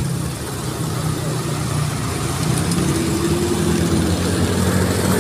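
Small motorcycle's engine running steadily while riding, under a steady rushing of wind and road noise, growing a little louder toward the end.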